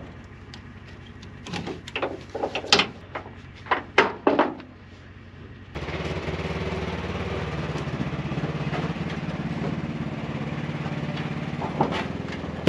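A run of sharp clicks and knocks over a low vehicle hum. About six seconds in this gives way suddenly to the steady, louder drone of the Polaris General 4 1000 UTV driving.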